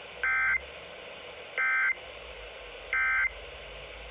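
Emergency Alert System end-of-message data bursts over NOAA Weather Radio: three short, identical bursts of warbling two-tone SAME data, about 1.3 s apart, over steady radio hiss. They mark the end of the AMBER Alert message.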